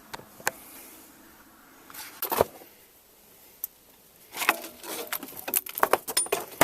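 Clicks and knocks of car parts and hand tools being handled during a strut job. There are a few isolated ones at first, then a busy clatter from about four seconds in.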